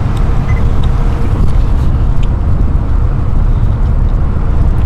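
Boat under way on the river, its engine making a loud, steady low rumble.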